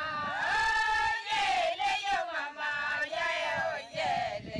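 Several Ilchamus women singing a traditional song together in high voices, holding notes and sliding between them.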